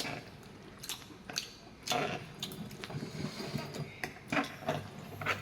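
A person chewing food while eating, with scattered short clicks and taps, the loudest about two seconds in.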